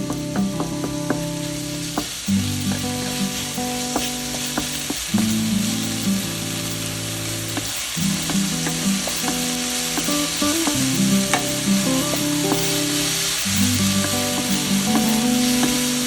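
Food sizzling in a hot frying pan, with scattered clicks of a utensil stirring it, over background music with sustained low chords.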